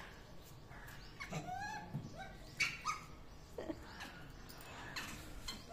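A few short, high animal calls that rise and fall in pitch, spread over a few seconds.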